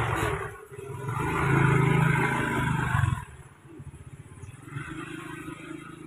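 An engine running nearby, loudest from about one to three seconds in, then dropping away abruptly, with a fainter murmur of sound after.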